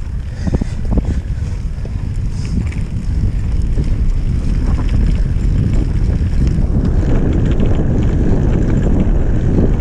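Wind rushing over the microphone as a mountain bike rides fast across grass, with tyre rumble and the bike rattling over the bumpy ground. There are a couple of knocks in the first second, and the rush grows louder after a few seconds.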